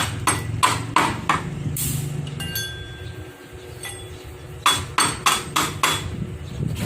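Hammering during a gate repair: about three sharp hammer blows a second, in two runs with a pause of about three seconds between them, and a brief ringing note in the pause.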